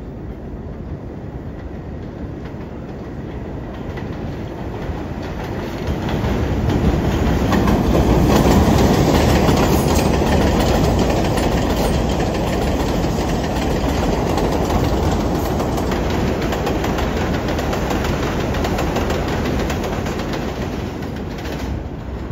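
R62A subway train running along an elevated steel track, its wheels rumbling and clacking over the rail joints. The noise builds as the train comes in, is loudest about eight seconds in as the cars run close by, then holds and eases slightly near the end.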